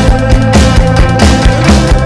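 Indie rock song in an instrumental passage without singing: a full band with a steady beat over sustained bass and guitar-like tones.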